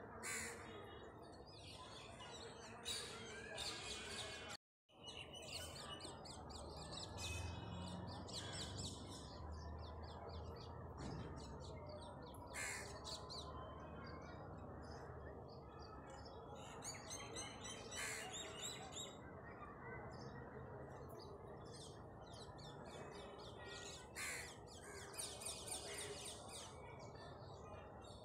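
Many birds chirping and calling over a steady low background din, with a low rumble for a few seconds. The sound cuts out sharply for a moment about five seconds in.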